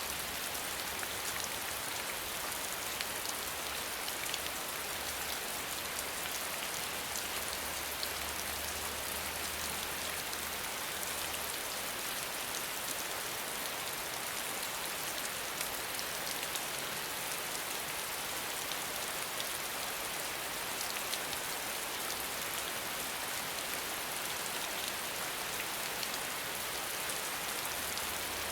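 Steady rain falling, an even hiss with many small drop ticks on a surface.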